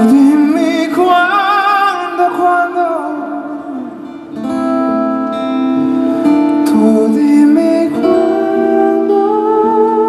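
Male tenor singing long held notes with vibrato over live band accompaniment. The music dips in loudness about four seconds in, then swells again with sustained chords.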